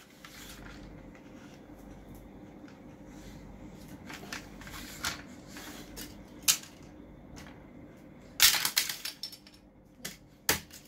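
Scattered clicks and clatters of plastic toy track pieces and toy cars being handled. The loudest burst of clattering comes about eight and a half seconds in, over a faint steady hum.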